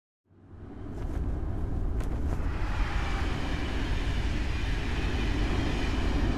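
A steady, even rumbling noise, strongest in the low end with no clear pitch, fades in from silence over the first second and then holds.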